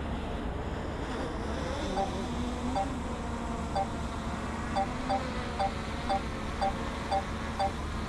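DJI Mini 3 drone descending to land, its propellers giving a wavering hum. From about two seconds in, short two-tone electronic beeps repeat roughly every half second.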